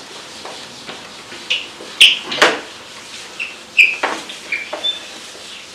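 Handheld whiteboard eraser scrubbing across a whiteboard: a run of short strokes with high squeaks, the loudest about two seconds in.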